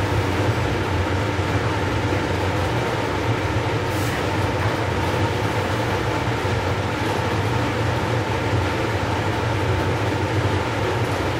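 Blower of a laminar-air-flow clean hood running, a steady hum and rush of air, with a faint tap of small tools being handled about four seconds in and again near the end.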